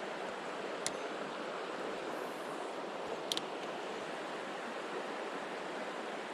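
Mountain stream water rushing steadily, with two short sharp clicks, one about a second in and another a little after three seconds.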